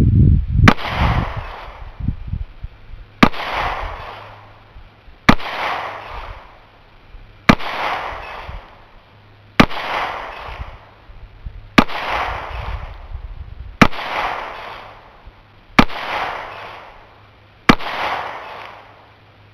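9mm Glock 26 pistol fired slowly, nine single shots about two seconds apart, each sharp crack followed by a decaying echo.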